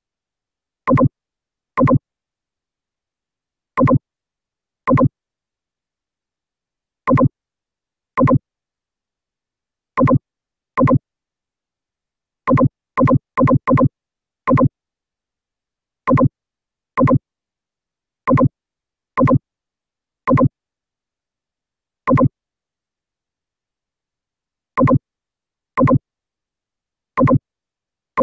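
Short electronic beeps, about twenty of them, each a brief pitched tone, coming at irregular gaps of half a second to nearly three seconds with dead silence between. They are a synthetic click sound effect laid over a software screen recording, marking mouse clicks.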